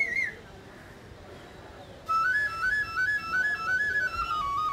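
Background music: a flute melody begins about two seconds in, its notes stepping quickly up and down and then gradually falling. A short warbling note sounds at the very start.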